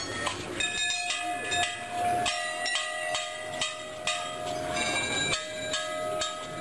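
Metal temple bells rung repeatedly, struck about three times a second, several ringing tones of different pitches overlapping and sustaining between strikes.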